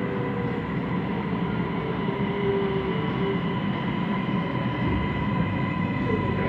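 Siemens Inspiro metro train rolling along the track, heard from inside the car: a steady rumble of wheel and rolling noise with a constant high whine from the traction equipment. The low rumble shifts about five seconds in.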